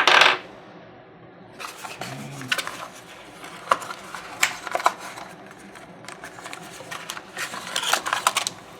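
Packaging being handled while a box is unpacked: a loud rustle at the start, then scattered clicks and crinkles, busiest near the end.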